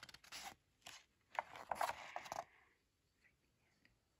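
Paper pages of a picture book being turned by hand, rustling and sliding in a few short bursts over the first two and a half seconds, with a single click just before the second.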